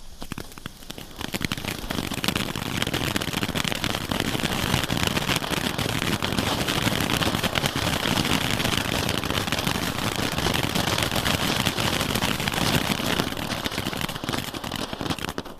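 Two Broekhoff Color Cascada category 1 ground fountains burning side by side: a steady hiss of spraying sparks thick with crackling. It starts about a second in and fades out near the end.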